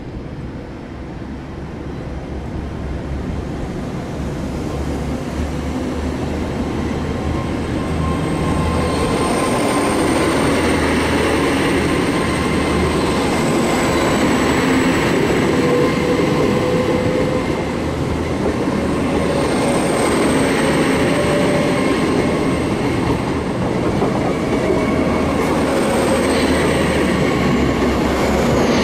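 A train running along the platform, growing louder over the first several seconds and then staying loud. A rumble underlies it, with a thin high squeal from about eight seconds in.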